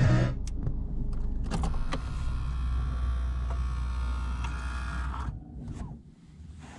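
Car radio music cuts off right at the start, leaving the 1990 Mercedes-Benz 230CE's four-cylinder engine idling as a steady low hum with a few small clicks. About five seconds in the engine hum dies away.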